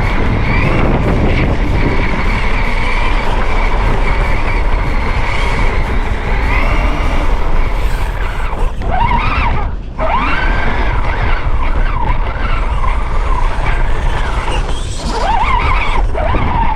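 Axial Bomber RR10 RC rock racer driving, its stock brushed 35T motor and geared drivetrain whining. The pitch rises and falls with the throttle, over a constant rumble of tyres and chassis on rough ground. The whine dips briefly near the middle.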